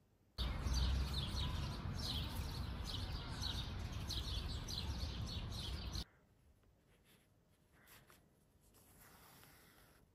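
Birds chirping rapidly over a steady rumbling background noise, cutting in suddenly just after the start and out abruptly about six seconds in. After it, a quiet room with a faint rustle of sewing thread being drawn through cloth near the end.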